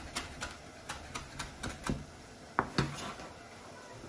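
Chef's knife chopping fresh parsley on a bamboo cutting board: quick sharp knocks about three a second, two louder strokes near the end, stopping about three seconds in.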